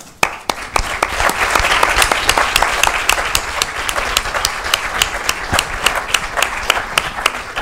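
Audience applauding: many hands clapping together, starting just after the beginning and dying down near the end.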